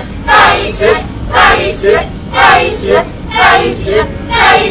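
A crowd of onlookers chanting a short phrase in unison, about once a second, urging the couple to 'be together'.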